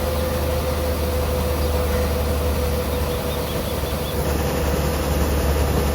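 A heavy engine running steadily: a constant low drone with a steady hum above it.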